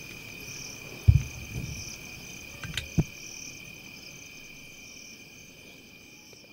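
A night-time insect chorus: steady, pulsing high-pitched trills, slowly fading toward the end. Two low thumps break in about a second and three seconds in, with a sharp click just before the second.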